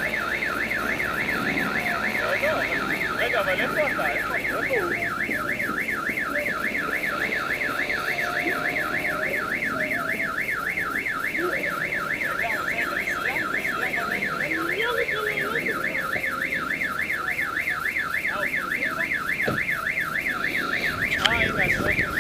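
Car alarm siren sounding a rapid, even up-and-down warble that repeats without a break, then cutting off abruptly at the very end.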